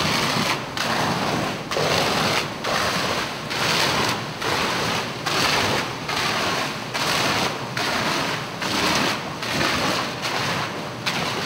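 Fire hose stream at about 30 psi spraying the fire-exposed face of a fire-rated gypsum wall during the hose stream test: a loud, steady rush of spraying water that dips briefly about once a second.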